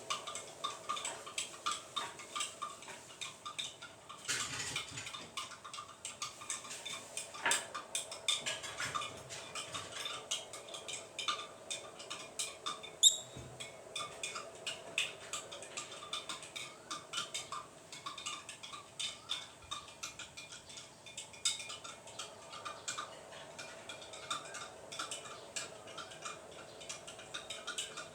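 Pet lovebirds in a cage: a continuous patter of small clicks, taps and scratches as they move about, with a short high chirp about halfway through.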